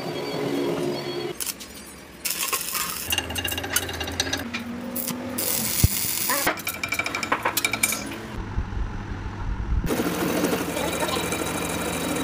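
Quick-cut metalworking sounds on a truck axle shaft. Mid-way there is the crackling, sputtering of arc welding. Near the end comes the steady cutting noise of a lathe turning down the welded shaft.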